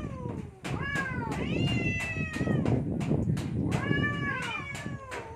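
Two cats in a standoff yowling at each other: several long, wavering caterwauls, sometimes overlapping, over a low rough growling.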